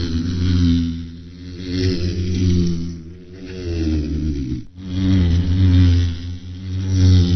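Bumblebee buzzing in flight: a low droning hum that swells and fades every couple of seconds, its pitch wavering slightly, with a brief break a little past halfway.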